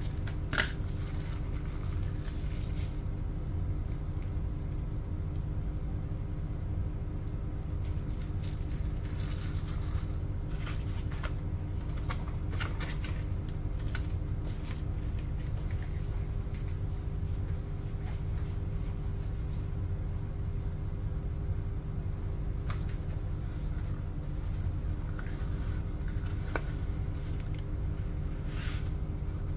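Paper and cardboard packaging being handled: scattered short rustles and light clicks over a steady low hum.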